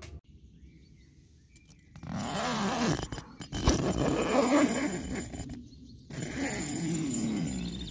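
A tent window's zipper being pulled open by hand in two long pulls: the first starts about two seconds in and the second about six seconds in.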